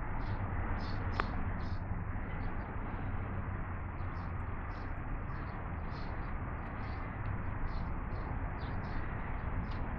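Steady outdoor rumble and hiss, with short high chirps repeating two to three times a second and a single click just over a second in.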